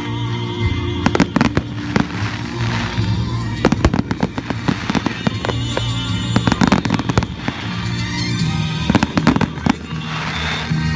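Fireworks display: aerial shells going off in quick succession, many sharp bangs and crackles throughout.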